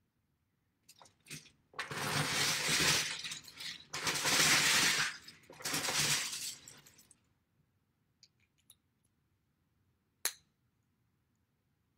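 Hands rummaging through a bin of plastic Lego bricks, the pieces clattering in three loud bouts. Then a few faint clicks and one sharp click near the end as bricks are pressed together.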